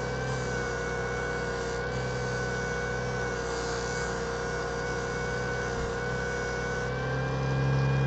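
Small Parkside 140-watt benchtop disc sander running steadily, with a piece of epoxy resin held against its fine-grit disc for polishing. The motor hum holds one even pitch and grows slightly louder near the end.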